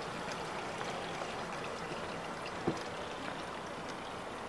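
Harbour water lapping and trickling against moored boats and the dock, a steady wash with faint little ticks, broken by one short knock about two-thirds of the way through.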